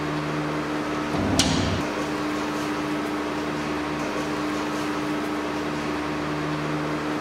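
A metal door handle is turned and its latch clicks about a second and a half in, with a soft thump of the door. A steady low hum runs underneath.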